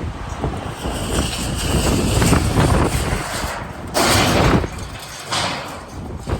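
Strong gusting wind buffeting the microphone, with a sudden loud burst of noise about four seconds in lasting about half a second, and a smaller one just after five seconds.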